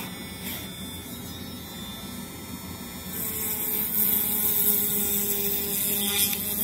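Dremel rotary tool running with a steady hum. About three seconds in, its bit starts grinding into foam insulation board, adding a loud, hissing scrape.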